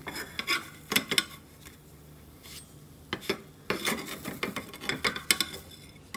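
Irregular scrapes and sharp clicks of a utensil working against a pan on the stovetop, coming in scattered groups.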